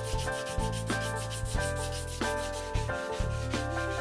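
Steel hatchet head being hand-sanded with abrasive paper in quick back-and-forth rubbing strokes. Background music plays under it.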